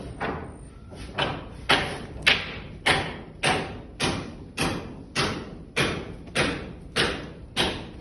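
A hand tool striking hard over and over at a steady working pace, nearly two strikes a second, each with a short fading tail.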